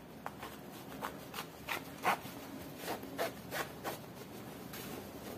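Plastic skirt boning being pushed through a fabric casing, with the fabric rubbing and rustling along it in short, irregular scraping strokes.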